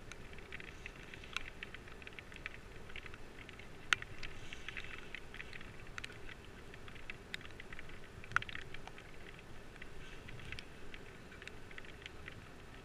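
Light, irregular pattering of raindrops on an action camera's waterproof housing, with two sharper ticks about four and eight seconds in.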